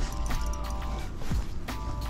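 Background music of sustained held tones over a low rumble, with a couple of short knocks a little past the middle.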